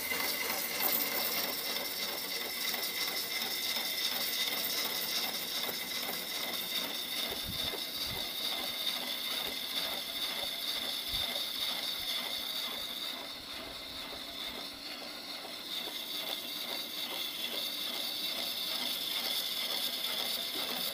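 Turning tool cutting into a large log spinning on a wood lathe: a continuous scraping hiss of shavings peeling off, with a steady high whine underneath. The cut eases for a couple of seconds just past the middle, and there are a few dull knocks near the middle.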